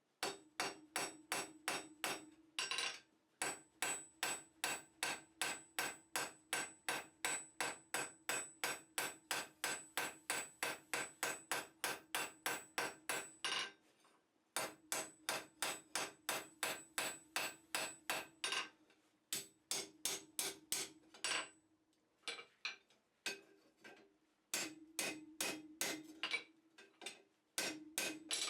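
Blacksmith's hammer striking hot steel on an anvil: long runs of steady blows, about three a second, each with a ringing tone, broken by short pauses about halfway through and again later.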